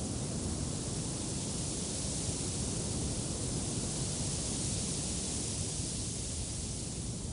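Steady wind rushing, with a low gusty buffeting and a high hiss that swells slightly around the middle.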